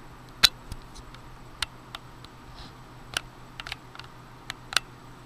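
Sharp, irregular clicks, about seven in five seconds, the loudest about half a second in, over a faint low steady hum.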